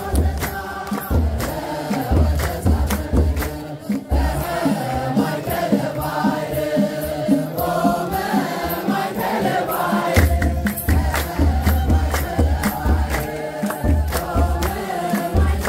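A group of voices singing an Ethiopian Orthodox hymn, with a deep drum beating a steady rhythm and sharp claps or percussion strokes. The drum beat drops away from about four seconds in and returns about ten seconds in.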